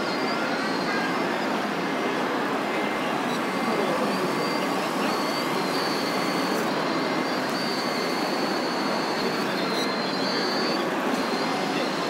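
Steady rushing background noise of a busy model-building hall. Over it, a thin high whine cuts in and out several times as the RC model wheeled excavator's hydraulic pump runs while it works its arm and bucket.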